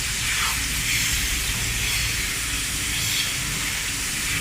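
Milking shed machinery running during milking: a steady hiss of air over a low hum from the milking plant.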